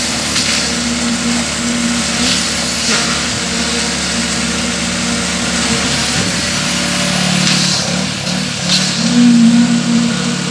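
A small engine running steadily on a concrete pour, its pitch shifting slightly past the middle, with a few short scraping hisses over it.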